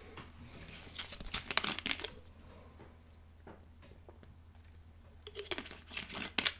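A person taking a drink of water: scattered crinkling and handling noises about half a second in and again near the end, with a quiet stretch between.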